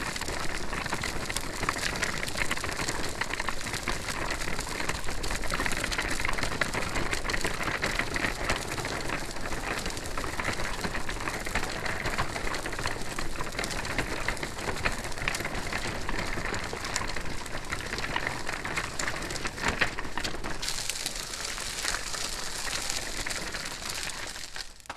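Stroller wheels rolling as the stroller is pushed along, a steady crackling rattle of small wheels on the ground. Near the end the low rumble drops away and the sound turns thinner and hissier before fading out.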